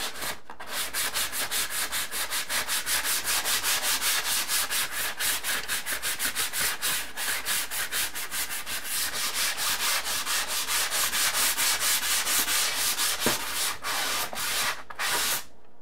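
Fine-grit sanding sponge rubbed by hand over dried drywall joint compound in quick, even back-and-forth strokes, about four a second, stopping near the end. It is knocking down a hump in the mud to make the wall smooth.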